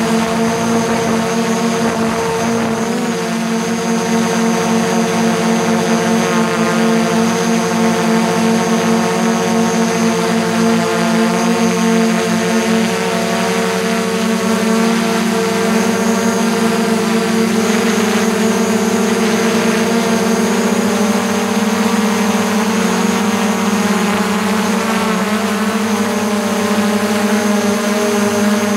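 DJI Mavic quadcopter's four propellers whining steadily in flight, heard up close from a camera mounted on the drone's body. The pitch shifts slightly a few times as the motors change speed.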